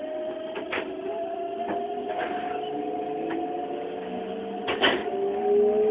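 Keikyu 600 series train's Mitsubishi GTO-thyristor VVVF inverter whining as the train accelerates away from a station, heard from inside the car: two tones slowly rising in pitch, with a lower tone joining near the end. A few brief knocks break in, the loudest about five seconds in.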